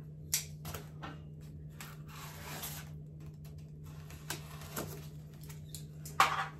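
Pocket-knife blade cutting and scraping through the packing tape on a cardboard box, with scattered small clicks and taps from handling the box and a louder knock about six seconds in.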